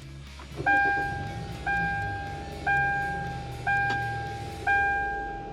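2013 Kia Optima's 2.4-litre four-cylinder engine catching about half a second in and idling low, just after new spark plugs and coil packs went in. Over it the car's dashboard warning chime dings about once a second, five times, each ding fading out.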